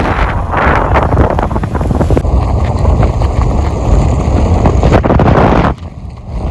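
Riding in an auto-rickshaw in the rain: loud engine and road rumble with wind buffeting the microphone, dropping off suddenly near the end.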